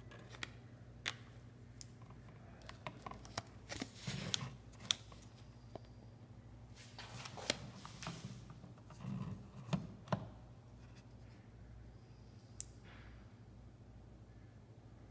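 Scattered light clicks and rustles of handling as thermostat wires and the phone are moved about, over a faint steady low hum.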